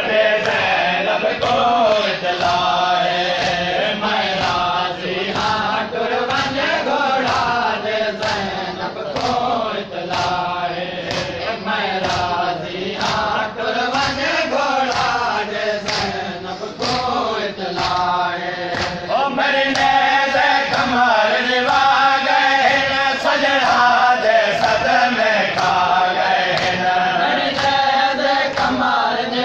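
Men chanting a noha, a Shia lament, with a sharp slap about once a second from chest-beating (matam) keeping time. The chanting grows louder and fuller about two-thirds of the way through.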